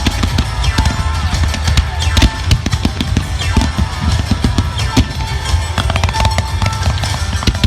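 Fireworks going off in rapid, irregular bangs and crackles over loud drum-heavy music from the arena's sound system.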